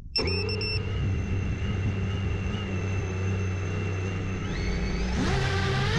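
GEPRC Moz 7 7-inch FPV quadcopter's motors and propellers spinning at a steady low throttle with a high whine, the pitch rising near the end as the throttle comes up.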